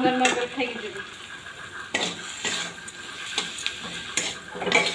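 Steel spatula stirring and scraping broken Maggi noodles frying in oil in a kadai, with scattered clinks and scrapes of metal on the pan over a steady sizzle.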